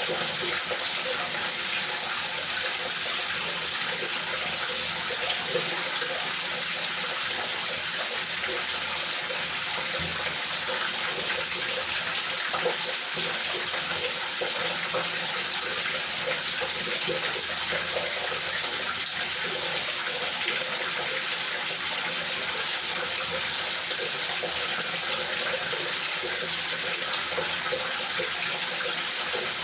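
Rain falling steadily, an even, unchanging hiss of water.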